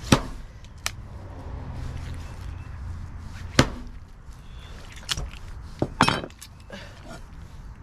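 Knife chopping through chicken joints and bone: about six sharp knocks at uneven intervals. The bones of these five-month-old Cornish cross birds are no longer soft.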